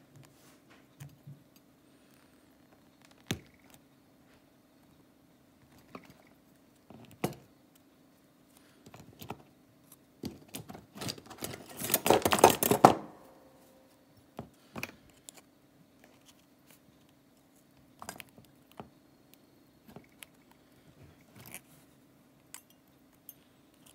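Small clicks and taps of needle-nose pliers, wire and a wooden lure blank being handled over a cutting mat, with a denser stretch of scratchy handling noise about halfway through, the loudest part, over a faint steady low hum.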